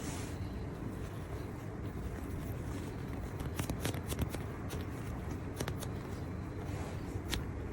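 Handling noise: a steady low rumble with scattered small sharp clicks, a cluster of them about four seconds in and single ones later.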